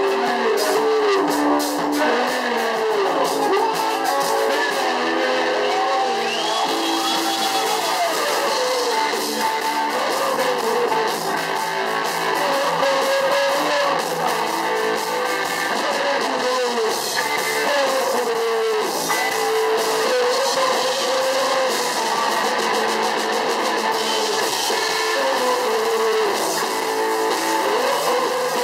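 Live band music with a guitar to the fore, a winding melody over a steady accompaniment.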